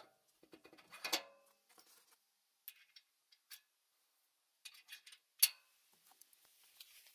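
Scattered small clicks and metallic clinks of a wheel being slid onto a steel axle and secured with a ring-handled locking pin. Louder knocks come about a second in and again about five and a half seconds in.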